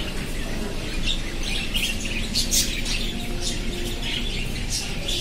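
Lovebirds in an aviary chirping and squawking: many short, high-pitched calls in quick succession, several a second.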